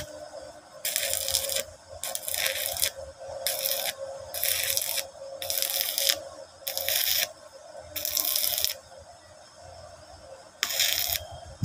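Stick (MMA) welding arc from a Ladderman MMA-200A inverter welder, crackling and sizzling in short bursts of about half a second to a second as the arc is struck and broken on a steel bar, about eight times with a longer pause near the end. A steady hum runs underneath.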